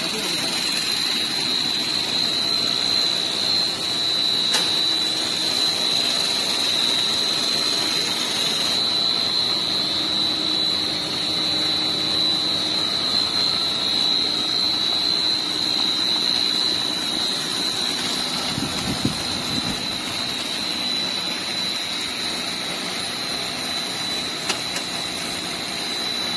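Twin-screw food extruder line running in a steady, even machine noise with a continuous high-pitched whine over it.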